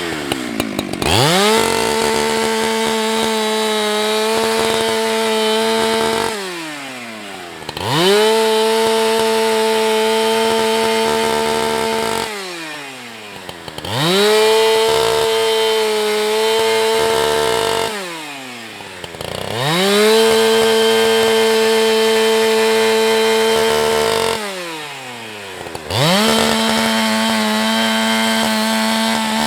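Husqvarna 365 two-stroke chainsaw revved to full throttle and held for about five seconds at a time, then let fall back toward idle. This happens five times in a steady rhythm.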